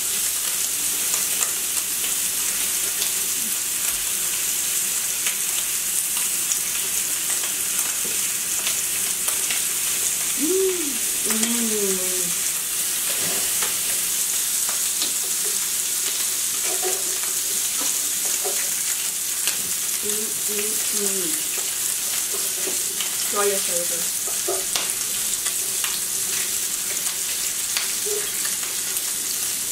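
Thinly sliced meat sizzling and frying on a grill pan over a portable tabletop stove: a steady, even hiss with many small crackles.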